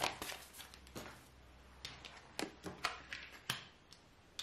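Fortune-telling cards being handled and laid down on a table: a series of light, irregular taps and slaps of card on card and table, about eight in all.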